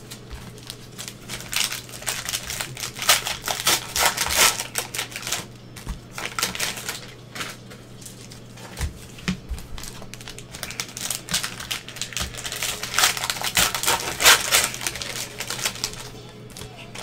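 Plastic cello wrappers on basketball card packs crinkling and tearing as the packs are handled and opened, in irregular clusters of sharp crackling that are busiest in the first few seconds and again in the last third.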